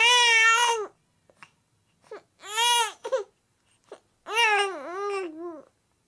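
Baby whining: three high-pitched, drawn-out cries, the first two short, the third longer and wavering down and up in pitch, with short breaths in the pauses between.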